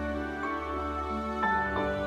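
Gentle new-age style background music: soft sustained notes, with new chords coming in about half a second and a second and a half in.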